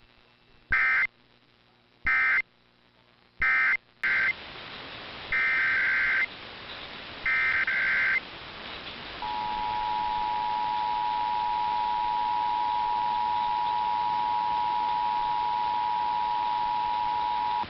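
Emergency Alert System SAME header: six short bursts of digital data, a harsh warbling buzz, in the first eight seconds. About nine seconds in comes the EAS attention signal, the steady two-tone 853 and 960 Hz alarm, held over radio hiss. Together they are the alert tones that open a monthly EAS test.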